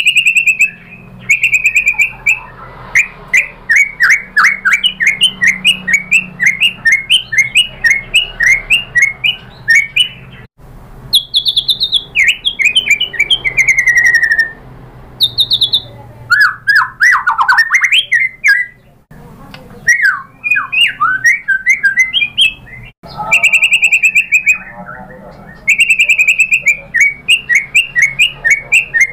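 White-rumped shama singing loudly in fast bursts: rapid trains of sharp, chattering notes mixed with clear whistled phrases, broken by short pauses.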